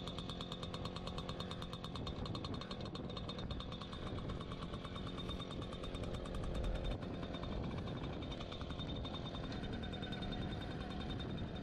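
Small motorcycle engine running at low revs with a rapid, even pulsing beat.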